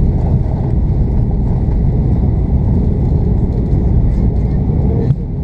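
Cabin noise of an Airbus A340-600 taxiing, heard from a window seat over the wing: a steady, loud low rumble from the four Rolls-Royce Trent 500 engines and the rolling airframe. A short click near the end, with a brief dip in the noise.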